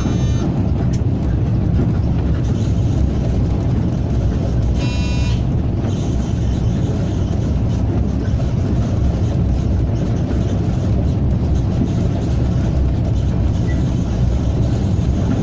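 Steady running noise inside the cab of a ČD class 163 electric locomotive at speed: a low rumble of wheels on rail and machinery. A high electronic tone cuts off just after the start, and a short electronic beep sounds about five seconds in.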